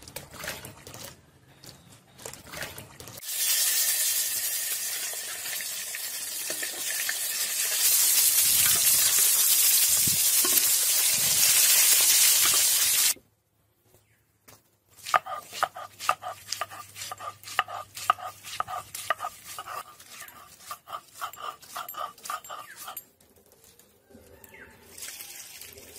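Whole tomatoes frying in hot oil in a black iron wok: a loud, steady sizzle for about ten seconds that cuts off suddenly. After a short quiet, a run of quick, evenly repeated strokes follows for several seconds.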